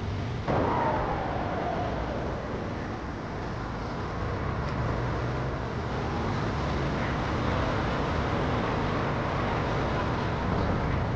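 Car travelling on the road: a steady rumble of engine and road noise. About half a second in it gets suddenly louder, and a whine falls in pitch over a second or so.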